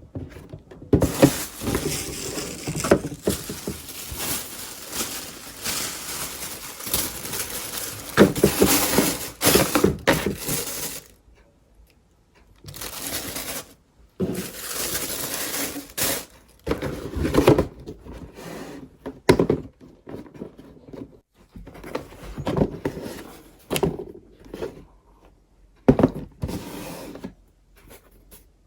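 Sneaker packaging being handled: long stretches of crinkling and rustling, with a pause partway through, then shorter rustles and a few sharp knocks.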